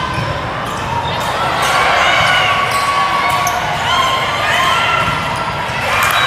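Volleyball rally: the ball being struck and players' shoes squeaking on the court, with voices echoing in a large hall.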